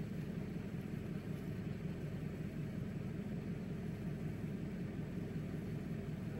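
Steady low rumble of an idling vehicle engine and its heater, heard from inside the car's cabin.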